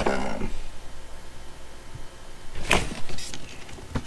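Cardboard packaging sleeve scraping and sliding against a hard plastic carrying case as it is handled, with one sharp scrape about two and a half seconds in and more handling noise near the end.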